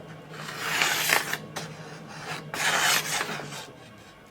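A fingernail scraping along the edge of a steel meat cleaver twice, sliding off instead of catching: the edge is dull. A faint low hum runs underneath and stops near the end.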